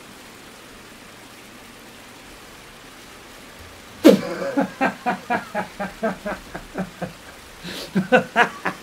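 A faint steady hiss, then about four seconds in a man bursts out laughing, a fast run of short "ha" pulses at about four a second.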